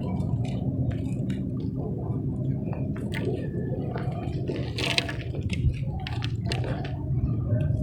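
Hard, dry shapes being crushed and crumbled by hand: irregular crunches and crackles, one louder snap about five seconds in, over a steady low rumble.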